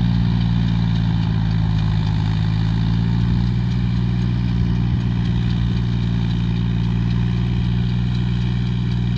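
John Deere tractor's diesel engine running steadily under load while pulling a rotary tiller through the soil, a continuous low drone.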